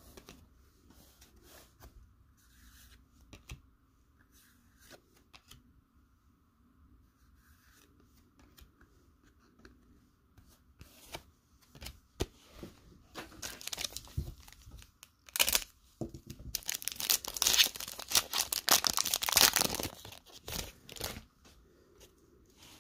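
A Panini Contenders football card pack wrapper being torn open, a crinkling rip that grows from about halfway and is loudest for a few seconds near the end. Before it, only faint rustling of cards being handled.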